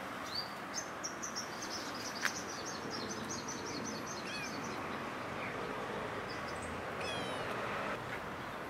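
Small animal calls over steady background noise: a rapid series of thin, high-pitched chirps for the first few seconds, then a few short falling squeaks, with a quick run of them about seven seconds in.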